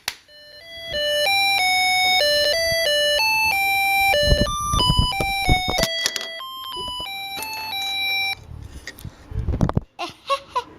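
Tinny electronic melody from an electronics kit's music chip through a small speaker: a tune of stepped single notes lasting about seven seconds, set off by the chip's vibration sensor. A few knocks come during and after the tune.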